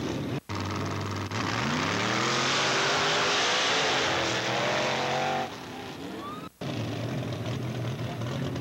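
Off-road Jeep engines: one idles, then revs hard with its pitch climbing steadily for about four seconds as the Jeep launches up the hill course. The sound cuts out abruptly twice, and after the second cut another engine idles steadily.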